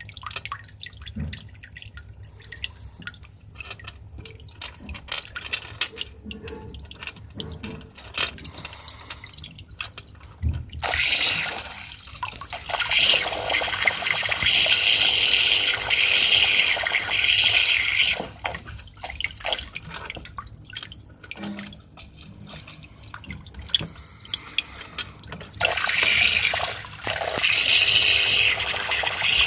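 Aquarium internal filter's outflow splashing and gurgling, loud for two long stretches, with scattered small clicks and knocks of pebbles and a turtle's shell against the filter and glass as the turtle digs at the gravel under the filter.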